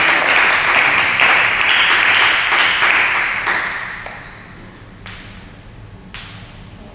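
Applause that fades out over the first three or four seconds, then two sharp clicks of a table tennis ball bouncing, about a second apart.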